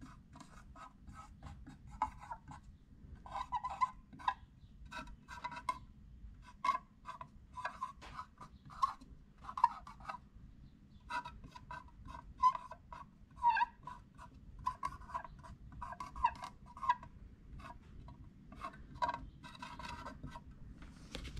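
Marker pen writing on the lid of a metal paint tin: a long run of short scratchy strokes, letter by letter, with brief pauses between words.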